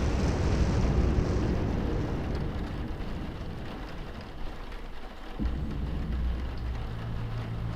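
A deep, noisy rumble that slowly dies away over the first few seconds. About five seconds in, a new low rumble sets in with a steady deep hum under it.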